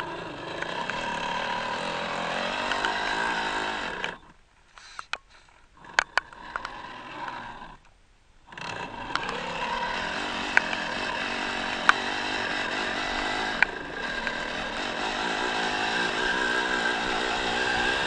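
Electric motor and gearbox of a radio-controlled scale UAZ 39094 off-road truck whining as it drives, stopping briefly twice in the first half, with a few sharp clicks and knocks.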